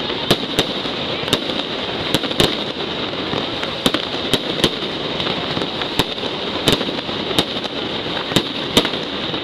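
Night mascletà fireworks: a continuous dense crackling of firecrackers, broken by irregular sharp bangs of firecrackers and aerial shells, about two a second.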